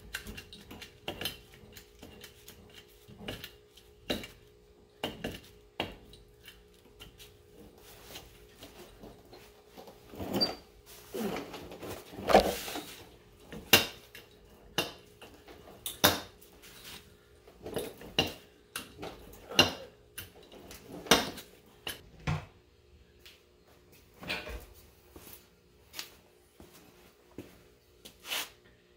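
Irregular metallic clanks, clicks and knocks of tools and metal parts being handled around a truck's rusty cab floor and rocker, with a faint steady hum underneath.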